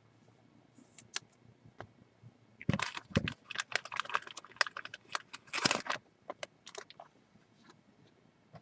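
Clattering and clicking of hard objects being handled: a few scattered clicks, then a dense run of knocks and clicks for about three seconds starting near the three-second mark, tailing off into a few more clicks.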